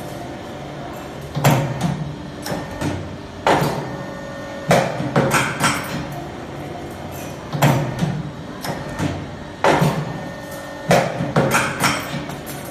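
Automatic steel wire bending and forming machine cycling. Its pneumatic cylinders drive the bending arms and head, giving groups of sharp metallic clacks and short hisses every second or two over a steady lower background.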